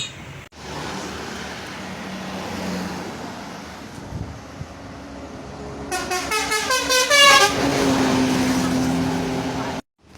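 Telolet basuri multi-tone musical horn on a bus, over engine and road noise. About six seconds in it plays a fast run of short warbling notes, then holds a lower steady tone that cuts off abruptly near the end.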